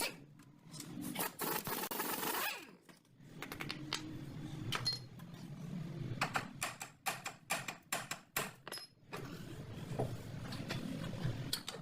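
Metal hand tools and parts clinking and clattering in a series of irregular sharp clicks, with a burst of rushing noise lasting about a second shortly after the start.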